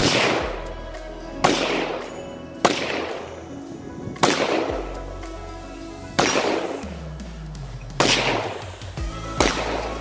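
AR-15 rifle fitted with a nickel-boron bolt carrier group firing seven single semi-automatic shots at uneven intervals of one to two seconds. Each shot is a sharp crack with a short ringing tail.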